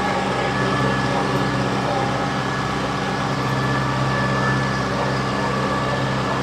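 Tractor diesel engine running steadily at constant speed, with a droning hum that holds throughout.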